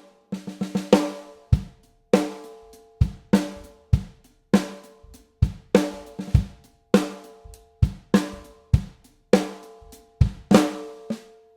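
Blackbutt hardwood stave snare drum, 14 x 5½ inch, played unprocessed in a steady drum-kit groove. Cracking snare hits ring on after each stroke and alternate with deep bass drum beats, with quick fills of several strokes near the start and again near the end.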